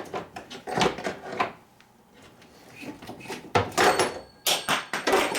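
Irregular knocks, clunks and rubbing from the removed microwave oven and its power cord being handled against the wooden cabinet, quieter around two seconds in, then a quick run of knocks near the end.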